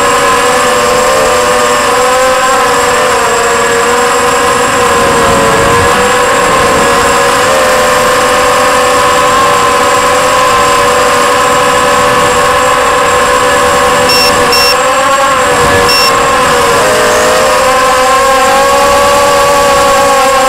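Electric motors and propellers of an FPV aircraft whining steadily, heard from on board, the pitch dipping and rising with the throttle. A few short high beeps come about two-thirds of the way in.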